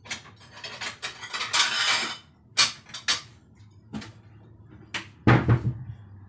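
Crockery clattering and clinking as a plate is taken out from among other dishes: a busy run of clinks and knocks over the first two seconds, then single knocks, and a heavier thud a little after five seconds, likely the plate being set down.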